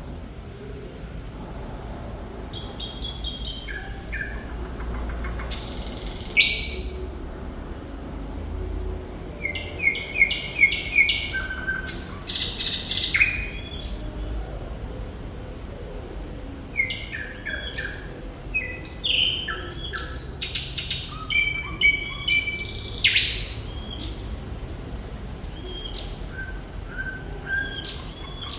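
Thrush nightingale singing in full song: phrases of short repeated notes, whistles and sharp clicks, separated by brief pauses.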